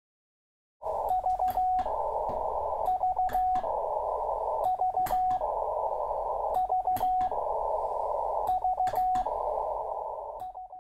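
Morse code (CW) as heard on a ham radio receiver: a single steady tone keyed in quick groups of short beeps about every two seconds, with narrow-band receiver hiss filling the gaps between them. It starts about a second in and fades out at the end.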